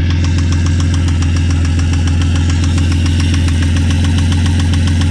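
Ford XR6's Barra 4.0-litre straight-six idling steadily with a loud, rapid, even rod knock, still knocking its head off with fresh oil and an oil stabiliser additive in. It is the sign of a damaged bottom end: the engine had run dry of oil and brass shavings turned up in the oil filter.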